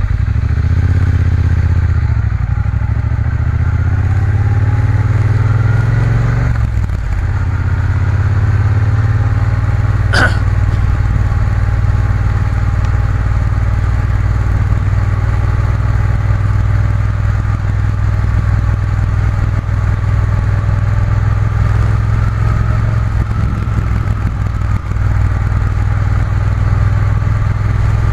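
Triumph Bonneville T120's parallel-twin engine running under way, rising in pitch as it pulls and dropping about seven seconds in, then holding a steady note. A brief sharp click about ten seconds in.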